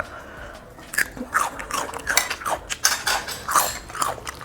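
Close-up crunching and chewing of crisp food, with a few clinks of cutlery on a plate; the crunching starts about a second in and comes several times a second.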